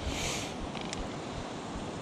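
Wind rumbling on the microphone, with a short scuffing hiss at the start and a few light clicks about a second in from footsteps on loose rock.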